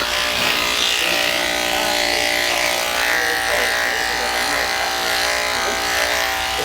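Electric dog grooming clippers running with a steady hum while shaving a poodle's coat short.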